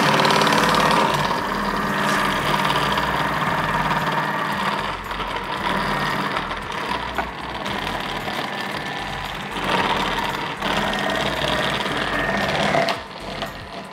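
Thermomix TM6 motor driving the Cutter's slicing disc on the thin-slice setting, running steadily as celery is pushed down the chute with the plunger and sliced. The motor sound drops away near the end.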